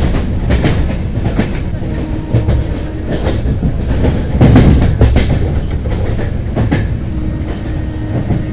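LHB passenger coach running on the rails: a steady low rumble of wheels on track, with irregular clickety-clack as the wheels pass over rail joints.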